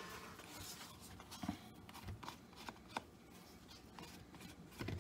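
Faint scraping and rubbing of a wooden spoon and a plastic scraper in a plastic mixing bowl of thick bread dough, with a few soft knocks.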